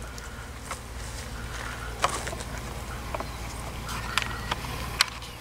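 Honeybees buzzing steadily around a stacked wooden box hive, with a few sharp knocks of wood being handled.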